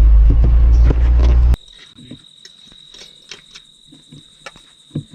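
A 4x4 vehicle's engine and cabin rumble while driving over rough ground, which cuts off abruptly about a second and a half in. After that an insect keeps up a steady high trill, with scattered faint clicks.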